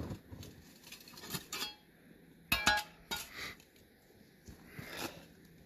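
A small metal shovel clinking and scraping against stones and frozen ground in snow: a few short knocks and scrapes, the loudest a ringing metallic clank about two and a half seconds in.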